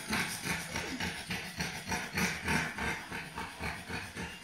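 A French bulldog and a boxer panting hard, quick rasping breaths at about three a second: the dogs are worn out after play.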